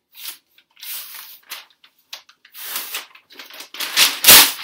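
A large sheet of paper being ripped and crumpled by hand: a run of separate rustling rips with short gaps, the loudest about four seconds in.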